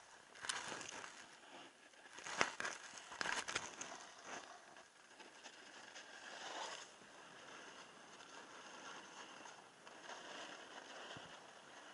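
Skis sliding down a groomed snow slope: a steady hiss of snow under the bases, with louder scraping surges from the edges about half a second in, between two and three and a half seconds in, and again around six and a half seconds in.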